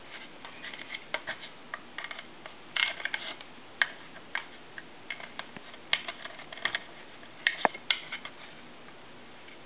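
Irregular light plastic clicks and rattles of a modular telephone plug being fumbled at its jack on a tone dialer box, stopping near the end.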